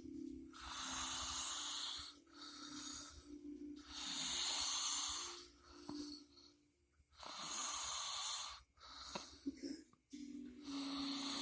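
A sleeping person snoring with hissy, wheezy breaths. Each cycle is a long loud breath followed by a shorter, softer one, repeating about every three and a half seconds.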